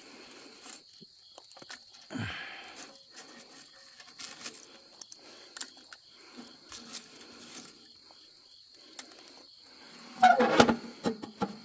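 Crickets chirping steadily over small clicks and scrapes of charcoal being handled in an iron drum stove, with a louder metal clatter from the stove near the end.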